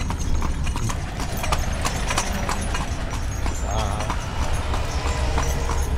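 A carriage horse's hooves clip-clopping at a steady pace on a paved road, over a steady low rumble, with light jingling from the ornaments hanging inside the caleche.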